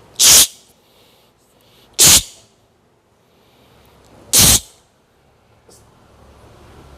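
Three sharp, forceful puffs of breath blown out hard by a person, about two seconds apart, with softer breathing in between.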